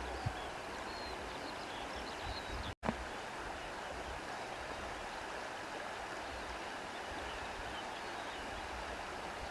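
Steady rushing of a flowing stream, with a few faint high chirps in the first couple of seconds. The sound cuts out for an instant a little under three seconds in.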